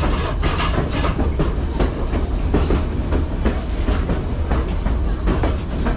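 White Pass & Yukon Route railway passenger train rolling along the track: a steady heavy low rumble with irregular clacks and rattles from the wheels and cars.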